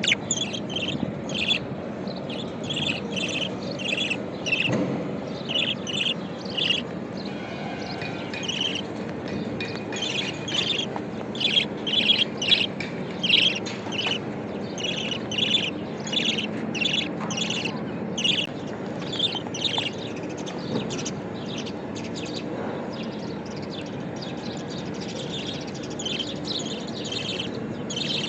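Budgerigar chirping: a run of short, high chirps a few per second, with brief lulls.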